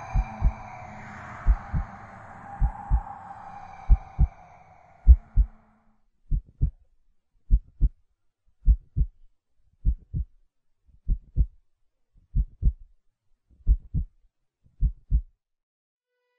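Slow heartbeat sound effect: paired low thuds, lub-dub, about one pair every 1.2 seconds. A drone under the beats fades out about six seconds in.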